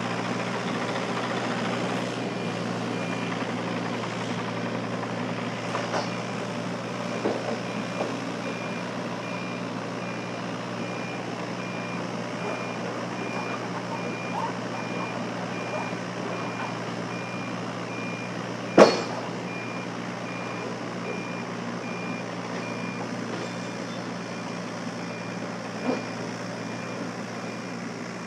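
Yanmar mini excavator's diesel engine running steadily while the machine tracks up steel ramps onto a trailer, with its travel alarm beeping at an even pace for most of the time. A few light knocks, and one sharp, loud clank about two thirds of the way through.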